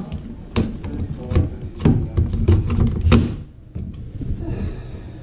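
Hard plastic clicks and knocks as a Humminbird 698ci fishfinder head unit is handled and seated onto its mounting bracket. A close run of clattering knocks lasts about three seconds, then it goes quieter.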